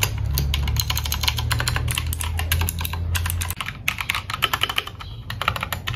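Rapid typing on a Redragon Kumara mechanical keyboard: dense, sharp keystroke clicks. About three and a half seconds in the typing turns quieter, matching the change from the loud clicky Blue switches to softer AKKO Crystal switches.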